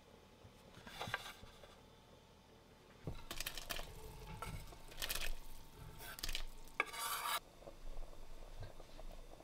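A utensil scrapes pieces of rotisserie chicken off a wooden cutting board into a pot of simmering congee, then stirs: a brief scrape about a second in, then a run of scrapes and clatters against the board and pot from about three to seven seconds in.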